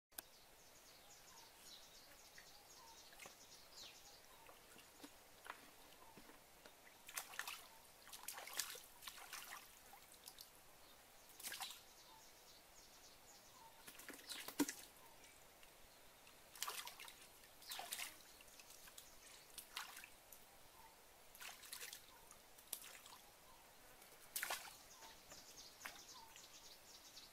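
Shallow water splashing and dripping in short, irregular bursts as hands and a plastic bucket are worked through it, with one louder splash about halfway through.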